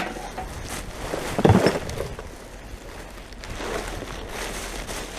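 Plastic rubbish bags being handled and rummaged in a dumpster: irregular rustling and knocking, loudest about a second and a half in, over steady outdoor background noise.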